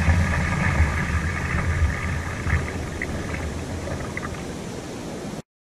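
Ocean surf washing in around the shallows with wind buffeting the microphone, a steady rush over a low rumble; the sound cuts off suddenly near the end.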